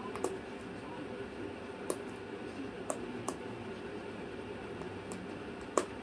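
Cockatoo chewing up small wooden chips, its beak cracking them in five sharp, separate clicks, the loudest near the end, over a steady low room hum.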